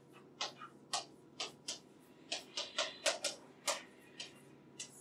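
Chalk writing on a blackboard: about a dozen short, sharp, irregular taps and scrapes as the chalk strikes and drags across the board.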